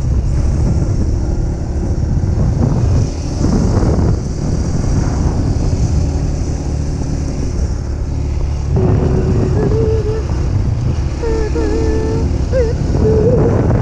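Honda CRF150F dirt bike's single-cylinder four-stroke engine running under way, with wind buffeting the microphone and brief dips in level a few seconds in.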